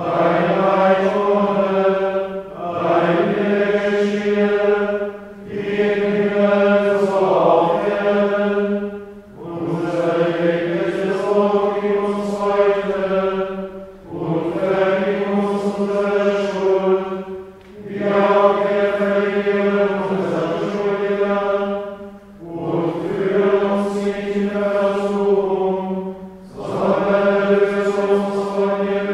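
Men's voices chanting in unison on one held reciting tone, in phrases of a few seconds each with short breaks between them and a slight fall in pitch at the end of each phrase. This is plainchant psalmody of the Good Friday Tenebrae office.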